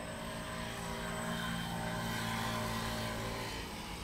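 A distant engine hum with a steady low drone swells to a peak about two seconds in, then fades away.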